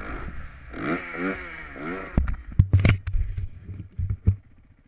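Motocross dirt bike engine revving, its pitch rising and falling, then several heavy thumps and rattles from the bike about two seconds in. The sound fades out just before the end.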